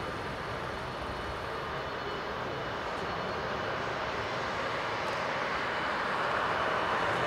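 Boeing 747-8F freighter's four GEnx-2B turbofans on final approach: a steady jet noise with a faint whine, growing slowly louder as the aircraft comes nearer.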